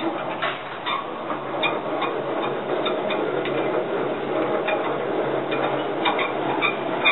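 Scattered light metallic clicks and taps, irregularly spaced, over a steady background hum.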